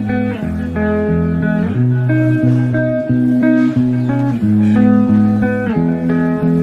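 Background music: plucked guitar playing a steady chord progression.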